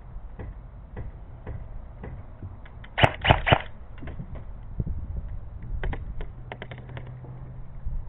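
Airsoft gun firing: a short burst of about four loud, sharp shots about three seconds in, then a quicker string of fainter shots around six seconds in. Lighter clicks come about every half second in the first two seconds.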